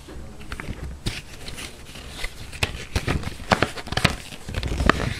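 Paper rustling and crackling as an instruction leaflet is handled and unfolded, in irregular bursts that get busier in the second half.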